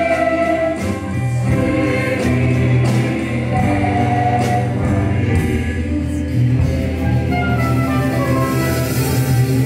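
Mixed amateur choir singing a Christmas song, accompanied by a small band of acoustic guitar, bass guitar and drums, with a steady bass line underneath the voices.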